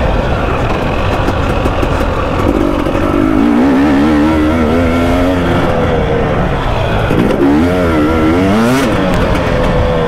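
KTM 300 two-stroke enduro motorcycle being ridden, its engine revs swinging quickly up and down as the throttle is worked, most strongly in the middle and again near the end, over a constant rush of noise.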